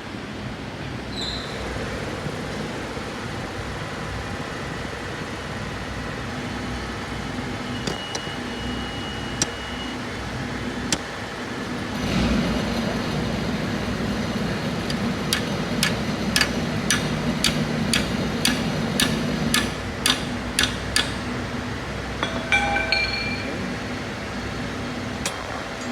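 Metal tools and engine parts clinking and tapping during engine assembly, over a steady workshop hum. In the middle comes a run of sharp taps about two a second, and there are ringing metallic clinks near the start and near the end.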